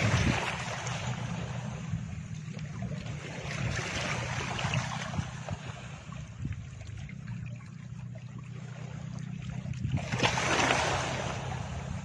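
Background sound bed under a screen recording: a steady low drone with slow, surf-like swells of rushing noise rising and fading three times.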